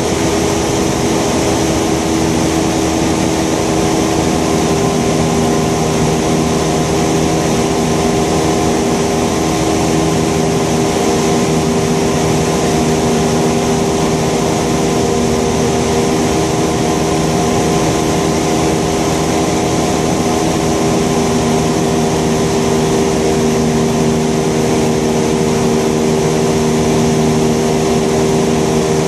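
Thruster T600N microlight's engine and propeller running at a steady power setting in flight, with air rushing past the outside of the pod. The engine note holds level throughout, with no change in power.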